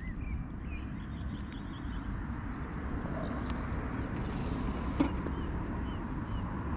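Wind rumbling on the microphone beside a canal, with a few faint bird chirps and one sharp click about five seconds in.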